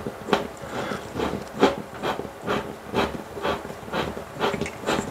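Screw-in drywall anchor being driven into drywall with a hand screwdriver: a rasping crunch with each turn, about two a second.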